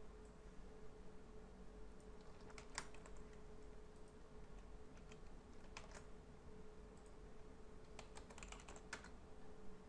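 Computer keyboard being typed on: a couple of single key clicks, then a quick run of keystrokes near the end, as when typing a file name. A faint steady hum runs underneath.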